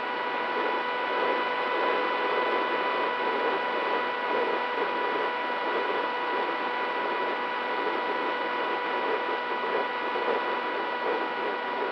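Electric brushless motor and propeller of an FPV flying wing in flight, heard through its onboard camera: a steady high whine of several held tones over a rush of air noise.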